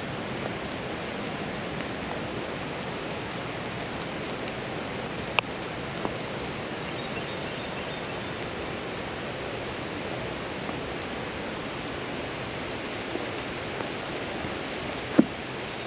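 Steady, even rush of water noise, with a few sharp ticks, the loudest near the end.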